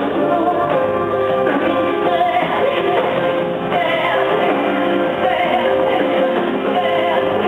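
Live rock band music with a sung vocal line, heard from a concert hall balcony. It is loud and continuous and sounds dull, with the treble cut off.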